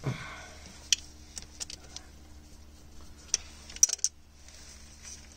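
Scattered sharp metallic clicks and taps from a worm-drive hose clamp on a fuel filter's hose being worked and tightened. The loudest clicks come in a small cluster a little past the middle.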